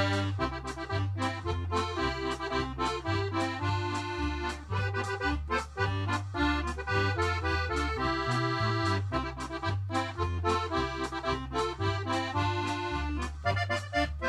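Instrumental background music: a melody over a moving bass line with a steady beat.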